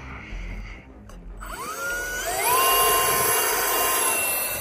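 Twin 40 mm electric ducted fans of an RC F-15 jet spooling up for a hand launch. From about a second and a half in there is a rising whine, which levels off into a loud, steady high-pitched whine. It eases off near the end as the jet is thrown and flies away.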